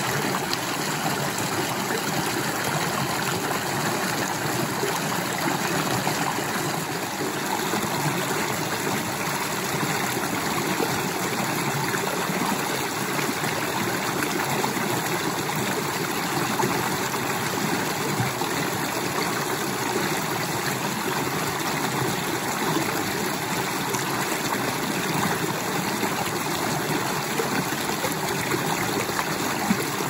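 Shallow creek water babbling steadily as it spills over rocks in a small cascade into a pool.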